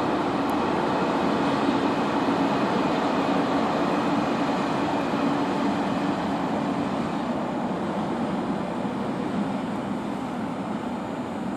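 Freight train of open wagons rolling through the station with a steady rumble of wheels on rails, easing off gradually in the second half.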